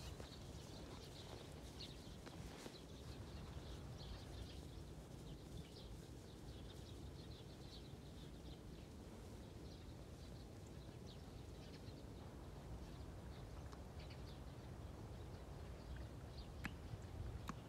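Faint outdoor ambience: a low steady rumble with scattered small bird chirps and one clearer rising bird call near the end.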